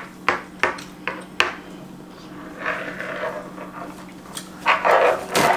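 Spoon and fork clicking and scraping on plates, a string of sharp taps, then a paper towel rustling loudly as it is handled near the end.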